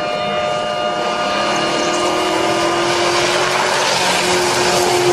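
Pickup truck doing a burnout: the engine is held at high revs, its note climbing slowly, under a hiss of spinning tyres that grows louder.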